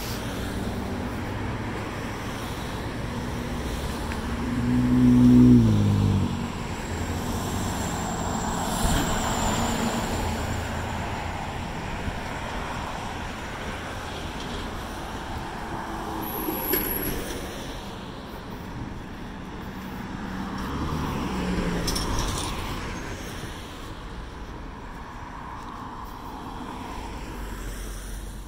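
Road traffic passing on a city boulevard: a steady run of cars going by, the loudest about five seconds in with an engine note that drops as it passes, and another vehicle passing in the last third.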